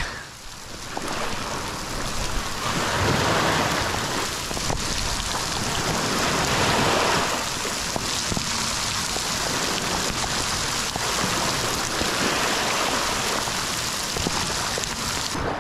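Rain shower falling on shallow sea water and the beach, a steady hiss of drops on the surface.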